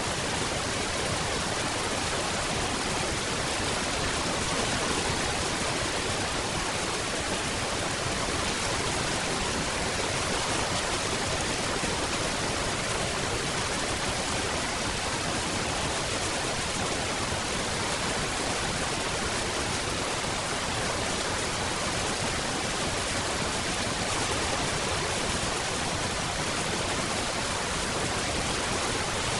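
Steady rain: a dense, even hiss of falling water with no single drops standing out and no change in strength.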